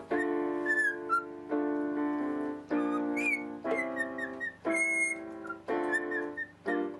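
Cockatiel whistling short rising and falling notes along with chords played on an electronic keyboard, a new chord about once a second.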